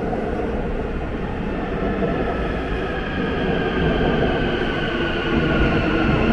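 Subway train running and slowing, its motor whine falling steadily in pitch over a rumble of wheels on rail.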